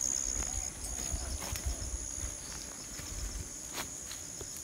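Steady high-pitched insect trilling, typical of crickets, with low scuffs and rustles of people and a dog moving through crop plants and a few light clicks.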